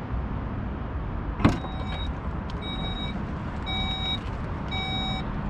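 A sharp click, then the Volkswagen ID.7's electronic warning chime beeping four times, about a second apart.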